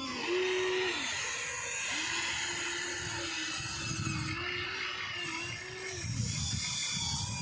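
Radio-controlled model excavator's motors whining steadily as it works, the pitch shifting with the load and cutting out briefly about a second in. A rougher, lower noise takes over near the end.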